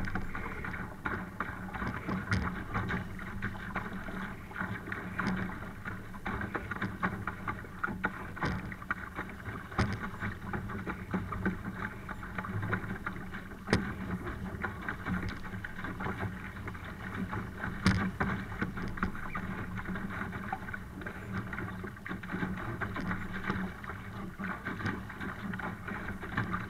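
Laser sailing dinghy under way in strong wind: a steady wash of water rushing and splashing against the hull, with a few sharp knocks.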